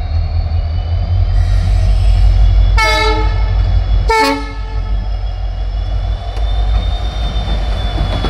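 Twin WDP4D diesel locomotives with 16-cylinder two-stroke EMD engines running with a steady deep rumble while shunting. Two short horn blasts sound about three and four seconds in, over a faint high whine.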